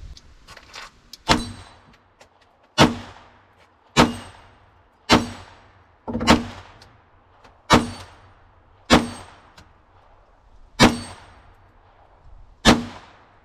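Nine single .22 gunshots fired one at a time at a steady pace, a little over a second apart, each with a short echoing tail.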